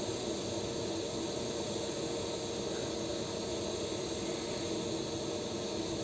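TIG welding arc hissing steadily as a bead is laid, with a steady hum underneath.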